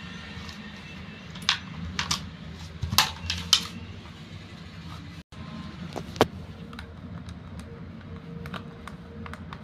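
Scattered sharp plastic clicks and taps from handling a toy RC transmitter and plastic RC toys, with no motor running.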